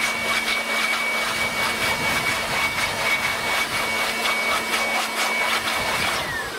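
Handheld electric blower running steadily with a high whine, blowing bees off a honey super. It is switched off about six seconds in, and the whine falls away as the motor spins down.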